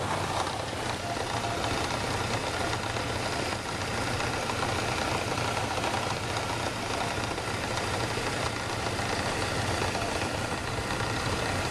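Ford Ranger engine idling steadily, its water pump's bearing blown out: a classic blown water pump.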